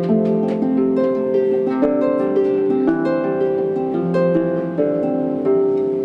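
Plucked string instrument, harp-like, playing a flowing melody of overlapping notes that ring on after each pluck.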